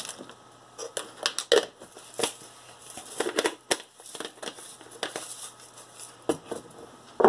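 Plastic measuring spoon scooping and scraping dried onion flakes in a spice jar: irregular clicks, taps and rustling scrapes. Near the end comes the rasp of the jar's plastic lid being screwed back on.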